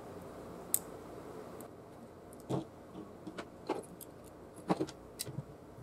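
Scattered light clicks and taps of small plastic and metal parts being handled and pried with a thin metal tool while a CD-ROM drive's laser pickup is taken apart. They come irregularly, roughly a dozen sharp ticks, about five of them louder.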